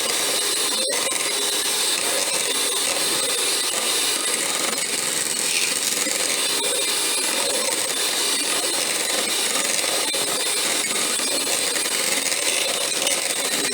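Electric hand mixer running steadily, its beaters whipping a thickened, partly solidified hair-grease mixture in a bowl.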